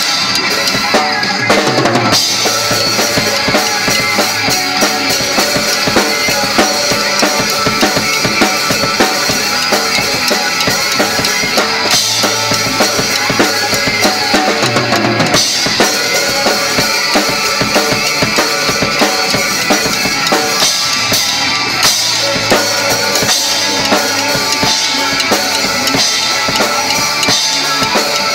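Yamaha drum kit played in a steady rock beat, with kick drum, snare and cymbals, over a recorded rock song that the drummer plays along to.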